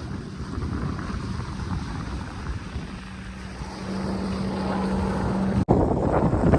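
Wind and water noise aboard a small sailboat under way, a low rumbling rush, with a steady low hum joining about halfway through and ending with it at an abrupt cut; after the cut the rush is louder.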